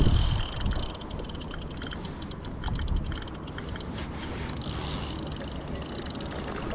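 Daiwa Saltist spinning reel clicking rapidly as it is worked against a hooked, hard-pulling crevalle jack. A brief low rumble sounds at the very start.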